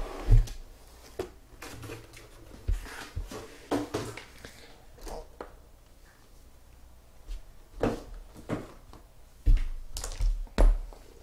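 Hands handling sealed trading-card boxes on a table: irregular taps, knocks and short rustles, with a few louder thunks near the end.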